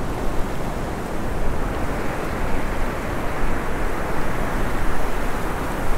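Wind rumbling on the microphone over the steady wash of small waves breaking on a sandy beach.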